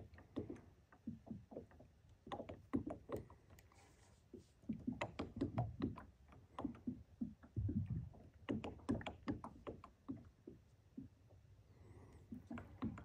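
Small waves lapping against the plastic hull of a Perception Outlaw 11.5 fishing kayak: faint, irregular clusters of light splashes and knocks.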